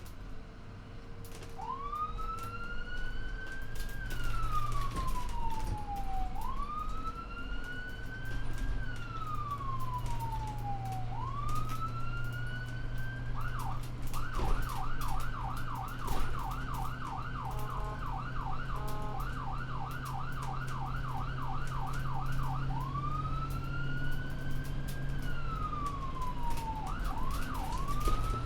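Ambulance siren on a moving vehicle, starting about a second and a half in with a slow wail that rises and then falls, switching to a rapid yelp for about nine seconds, then going back to the wail. A steady engine drone runs underneath.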